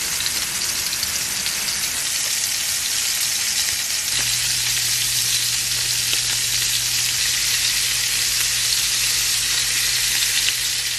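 Meatballs sizzling steadily as they fry in a cast iron pan. A low steady hum joins the sizzle about four seconds in.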